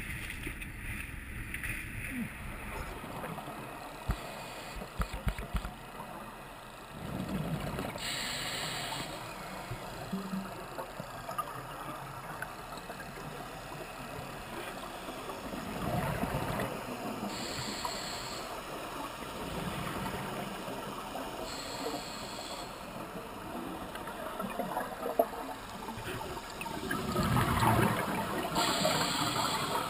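Muffled underwater noise heard through a GoPro dive housing, with a scuba regulator breathing every several seconds: a rush of exhaled bubbles followed by a short hiss of inhalation.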